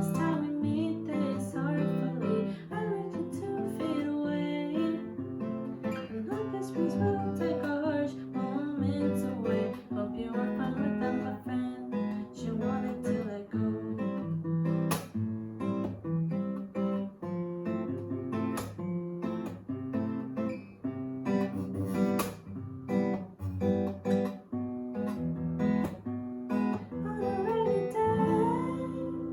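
Solo acoustic guitar being strummed and picked in an instrumental passage of a song. A singing voice comes back in near the end.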